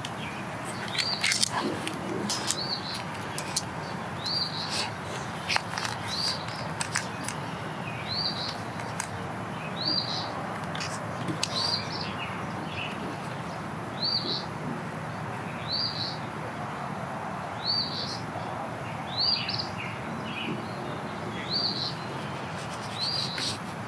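A bird chirping, one short note about once a second. A few sharp clicks from a solar panel's cable and clip being handled sound in the first several seconds.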